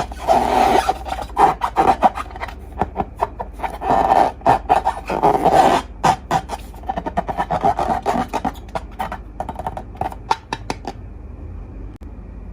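Slime being squeezed and worked by hand: rapid sticky clicks and pops, with two longer rubbing stretches, stopping about eleven seconds in.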